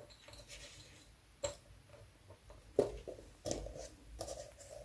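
A few light, scattered clicks and ticks of glass beads knocking together as a strung bead necklace is handled on its hook.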